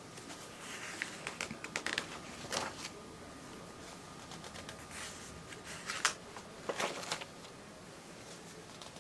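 Paper pages of a binder catalog being handled and turned: two spells of rustling with light clicks, about a second in and again around five to seven seconds in.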